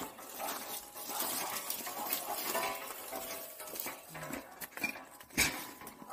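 Metal wire dog crate rattling and clinking as it is carried, with puppies inside giving short whimpers. One sharp knock about five seconds in is the loudest sound.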